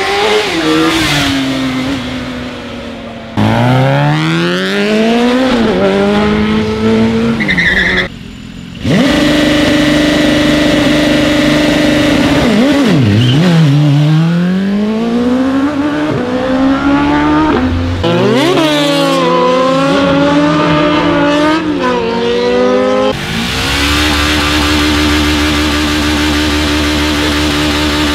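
Sport motorcycles revving hard and accelerating away, the engine pitch climbing and dropping again and again, with abrupt cuts between clips. Near the end a motorcycle engine is held at steady high revs as the rear tyre spins in a burnout.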